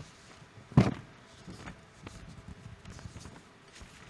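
Handling noise on a handheld microphone: one sharp thump about a second in, then faint light knocks and rustles, as of papers being handled near the microphone.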